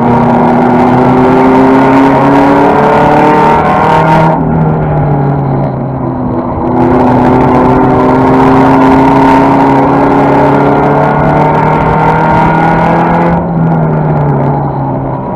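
Toyota Celica race car's 5S-FE four-cylinder engine heard from inside the cockpit, under hard throttle. Its pitch climbs slowly, drops as the throttle is lifted about four seconds in, climbs again, and drops once more near the end.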